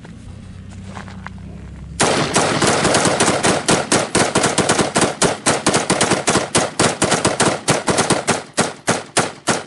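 Two Springfield Saint AR-15 rifles in 5.56 NATO firing rapid semi-automatic shots together, starting about two seconds in. The shots overlap into a fast, irregular string of several a second as both rifles empty full magazines.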